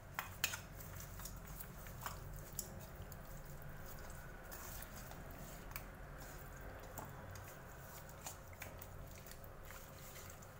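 Hands squeezing and rubbing a wet marinade into raw chicken pieces in a steel bowl: faint squishing, with a few short, light clicks, mostly in the first few seconds.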